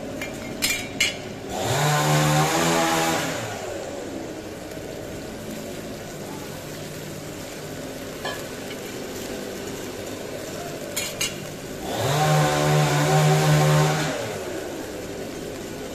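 Plov ingredients sizzling and simmering in a cast-iron kazan. Twice, a louder motor whirs up in pitch, runs steadily for about two seconds and winds back down.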